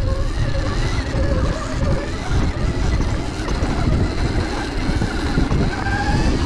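Sur-Ron electric dirt bike's motor whining under throttle on a steep climb, the whine rising in pitch near the end, over a heavy, steady rumble.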